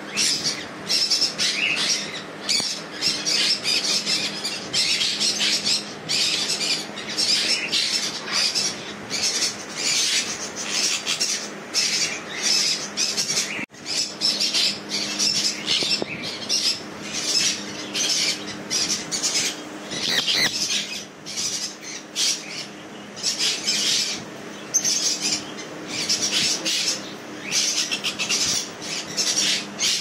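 A flock of sun conures screeching, with many short, shrill squawks in quick succession and overlapping. A low steady hum lies underneath.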